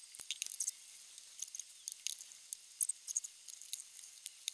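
Small plastic bottles, a paper-towel roll and other small items being picked up and set down on a plastic cutting mat: a scatter of light, irregular clicks and taps with faint rustling.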